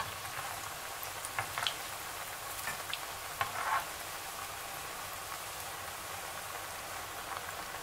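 Lauki kofta balls deep-frying in hot oil in a kadhai: a steady crackling sizzle, with a few brief louder clicks and scrapes in the first four seconds as a metal slotted skimmer stirs them along the bottom of the pan.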